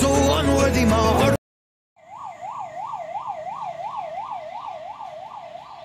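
Music cuts off about a second in. After a short silence, an ambulance siren sounds in a fast up-and-down yelp, about three sweeps a second, slowly fading.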